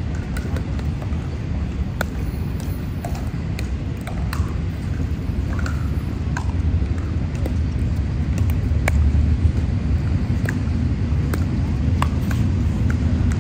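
Pickleball paddles hitting a plastic ball: sharp, scattered pocks that come more often in the second half as a rally gets going, over a steady low rumble.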